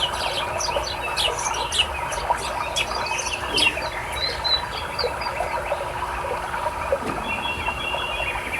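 Songbirds chirping in quick, short high notes over the steady rush of flowing river water. The chirping is busiest in the first four seconds, and a rapid trill comes in about seven seconds in.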